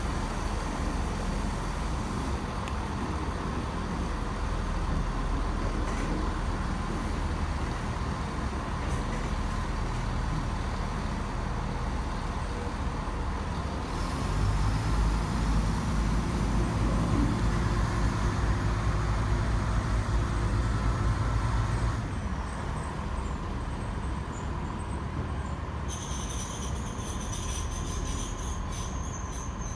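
ScotRail diesel multiple unit, two units coupled, moving past and pulling away with its diesel engines under power: a steady low drone that grows louder for several seconds about halfway through as the powered cars pass. A thin high squeal joins near the end.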